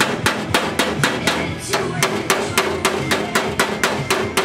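Hammer striking the edge of a curved sheet-metal panel on a metal workbench: quick, even blows at about four a second, with music playing in the background.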